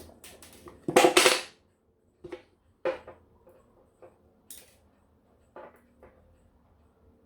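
Small metal tools and brass clock-movement parts clinking and tapping against each other as a part is worked off the clock works. There is a loud clatter about a second in, then a few scattered light clicks.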